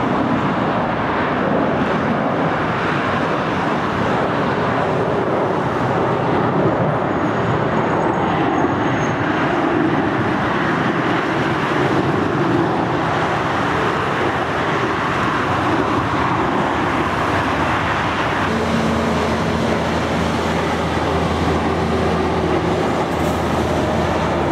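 Jet engines of a wide-body airliner climbing out after takeoff: a steady, loud roar. About three quarters of the way through, a low steady drone of several tones joins it.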